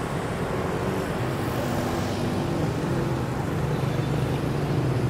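A motor vehicle's engine running steadily, with street traffic around it.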